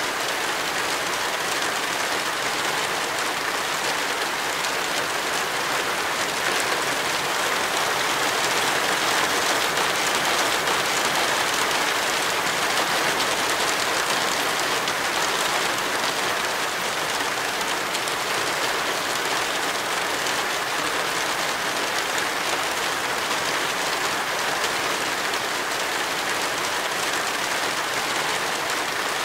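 Rain falling steadily: a dense, even hiss with no let-up and no separate drops or knocks standing out.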